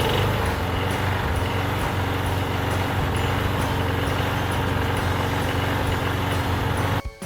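Small two-stroke string trimmer engine running steadily at idle after priming, its carburetor just fitted with a new diaphragm; it keeps running without stalling. The sound stops abruptly near the end.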